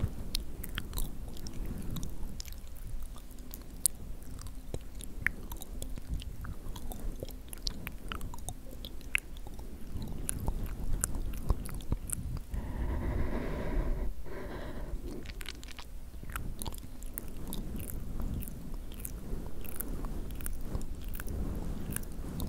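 Fingers pulling and stretching fluffy fake cobweb fibre close to a microphone: soft rustling with many tiny crackles.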